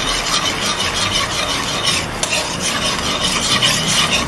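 Metal spoon stirring and scraping around an aluminium wok while hot sweet and sour sauce sizzles, a cornstarch-and-water slurry being worked in to thicken it. Steady, continuous scraping with a fast, uneven rasp.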